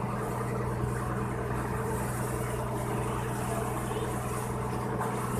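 Pump boat (outrigger banca) engine running steadily at cruising speed, with water rushing and splashing along the hull.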